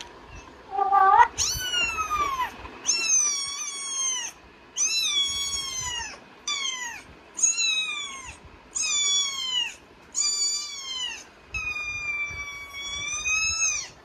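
A run of about nine high-pitched, kitten-like meows, each about a second long and sliding down in pitch, with a longer, drawn-out one near the end.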